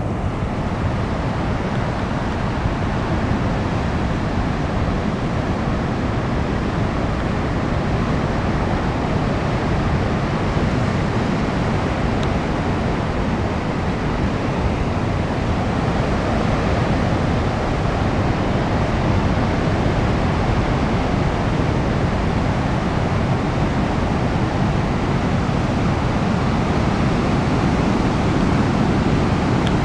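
King-tide Pacific surf washing and foaming over sand and rocks: a steady, continuous rush of water, slightly louder near the end.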